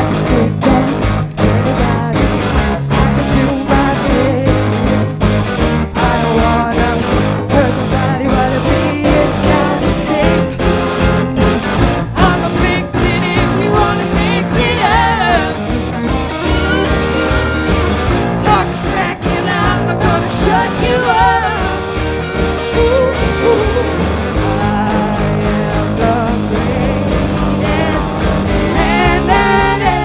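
Live rock band playing: drum kit, bass and electric guitars, with a wavering lead melody over the top from about the middle on.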